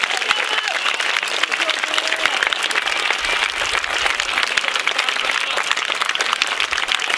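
Football supporters applauding: dense, steady clapping from many hands close by, with a few voices calling out over it.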